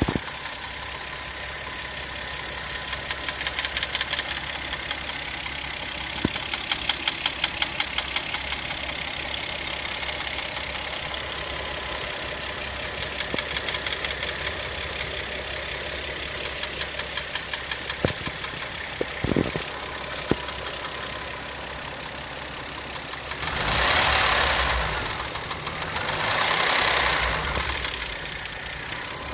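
1995 Mazda KL 2.5-litre V6 idling with a rhythmic tapping knock from the right cylinder head, revved twice near the end.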